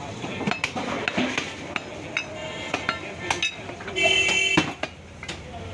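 Butcher's cleaver and beef knocking on a wooden log chopping block: a scatter of sharp knocks. A loud, short horn-like blare about four seconds in.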